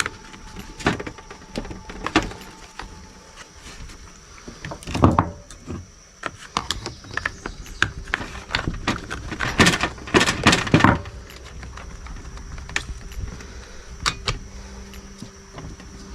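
Hands working on small plastic and metal trimmer parts: irregular clicks, knocks and rattles, with a longer scraping clatter about five seconds in and another stretch around ten seconds in.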